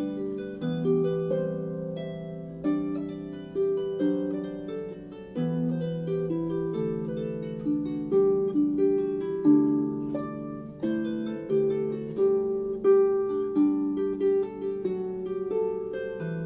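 Background music: a melody of plucked string notes, one after another, each struck and then dying away.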